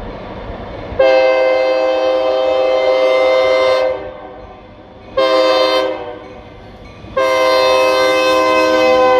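Freight locomotive air horn sounding several notes at once: a long blast about a second in, a short blast, then another long blast held near the end, over the low rumble of the train.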